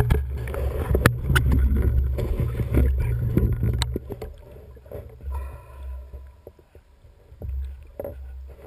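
Underwater audio through a camera housing: a low rumble of water moving against the housing, with sharp clicks and knocks from the spear gear close by. It gets much quieter about four seconds in, leaving softer knocks.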